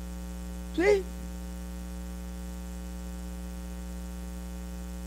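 Steady electrical mains hum with a stack of evenly spaced overtones, running unchanged through the pause after one short spoken word.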